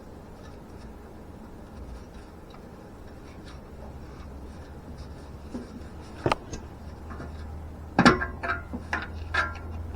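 Small clicks and clinks of hands working the oxygen sensor's wiring and clips under a car, with a sharp click about six seconds in and a quick run of louder clicks and clinks between about eight and nine and a half seconds in, over a faint steady low hum.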